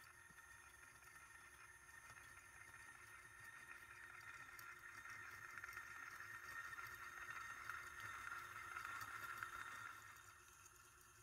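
Faint, steady whir of a small electric motor and gear train driving a sardine-tin kinetic sculpture, growing slightly louder and then easing off about ten seconds in.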